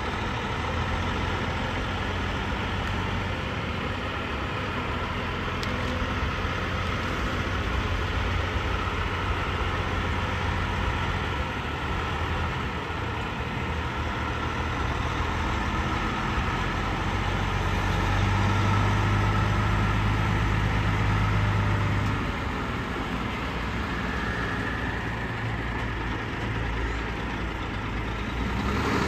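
Semi-truck engine running steadily, a continuous low drone that swells a little about two-thirds of the way through.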